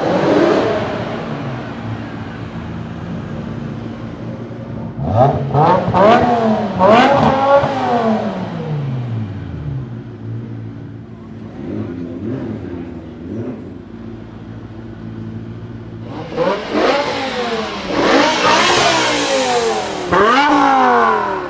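BMW S85 5.0-litre naturally aspirated V10 of an M5 E60 flaring briefly at the start, settling to a steady idle, then blipped several times in quick succession in two spells, the pitch rising sharply and falling back each time.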